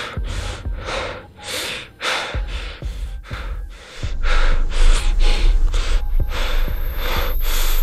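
A man breathing hard and fast in panic, short ragged breaths two to three a second, over a low, dark music drone that swells about four seconds in.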